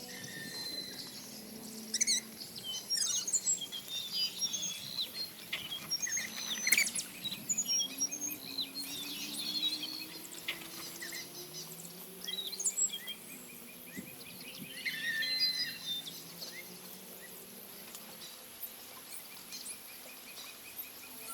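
Several birds calling: many short chirps, whistles and quick rising and falling notes, scattered irregularly over a faint steady high-pitched hum.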